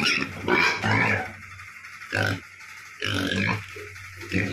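Pig grunting, a run of short grunts.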